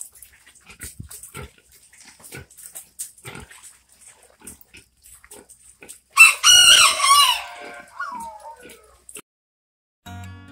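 A rooster crows once, a loud pitched call of about a second and a half, followed by a shorter falling call. Faint scattered clicks come before it.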